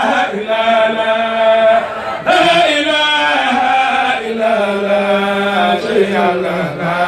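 A man chanting an Arabic Sufi religious poem (a Mouride khassida) into a microphone, in long held, wavering notes, with a short break about two seconds in.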